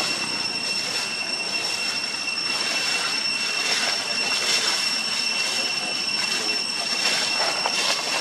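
Steady drone of insects: a continuous high whine at two fixed pitches over an even hiss, with a faint pulsing flutter up high.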